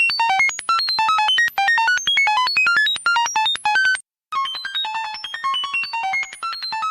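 Synthesized electronic beeps in a rapid string, several short tones a second hopping between high and low pitches like a computer processing data. The run stops briefly about four seconds in, then a similar run of beeps starts again.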